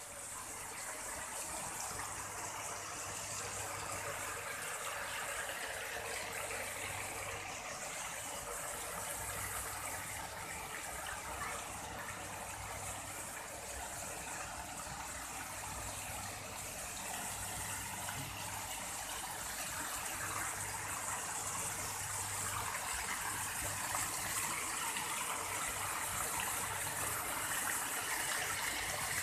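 Ornamental fountain jets splashing into a shallow pool: a steady rush of falling water that grows a little louder near the end.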